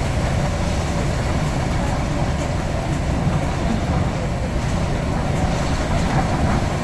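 Scania N94UD double-decker bus running, a steady low engine drone with road noise and no clear change in pitch.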